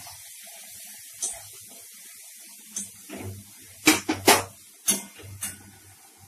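Onion, garlic paste and chilli powder frying in oil in a pan, with a steady sizzle. A utensil knocks and scrapes against the pan several times, loudest about four seconds in.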